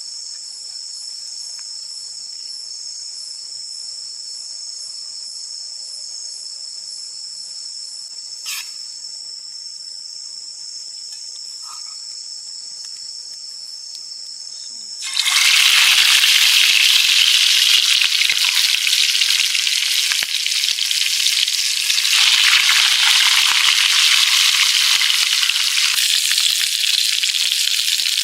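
Insects chirping steadily in a high, fine pulsing drone, then about fifteen seconds in a loud sizzle of food frying in hot oil starts abruptly and covers them.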